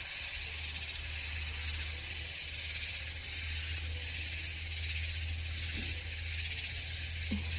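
A chorus of cicadas buzzing: a dense, steady high-pitched drone that swells and eases slightly, with a steady low hum underneath.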